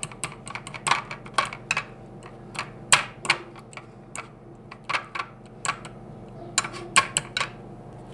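A metal fork mashing soaked bread in a child's bowl, its tines clicking and tapping against the bowl in irregular strokes, a few each second. The taps stop about seven and a half seconds in.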